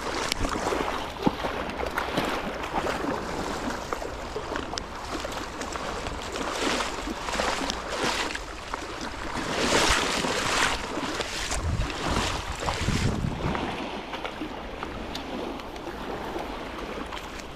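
Shallow surf washing and water sloshing at the water's edge, with wind buffeting the microphone. The noise swells louder a few times, strongest about two-thirds of the way through.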